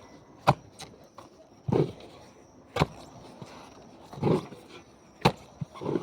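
A plasterer's scoop working soil out of a post hole: sharp knocks about every two and a half seconds as it strikes into the ground, with a scraping, rushing sound of earth between them.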